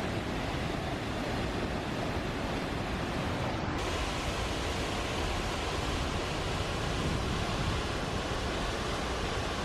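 Hällingsåfallet, a waterfall with a 43-metre drop, rushing: a dense, steady wash of falling water that holds an even level throughout.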